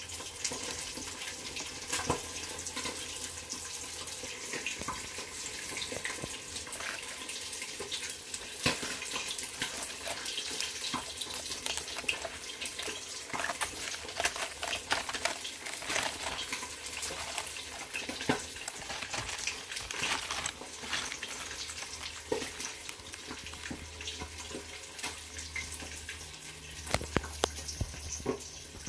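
Hot oil sizzling in a frying pan as fish fries: a steady hiss broken by irregular crackles and pops.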